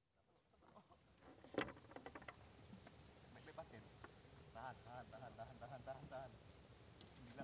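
Steady, high-pitched insect drone fading in at the start and running on unbroken. A sharp click comes about a second and a half in, and a short run of faint repeated chirping notes falls in the middle.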